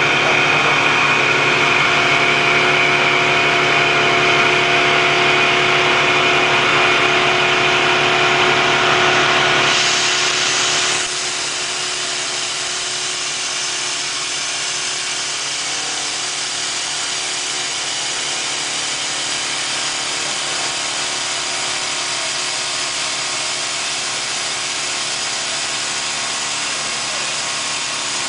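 4-axis CNC milling machine running while machining a screw: a steady machine whine made of several held tones. About ten seconds in the sound changes, turning a little quieter, with the low hum dropping away and a brighter steady hiss taking over.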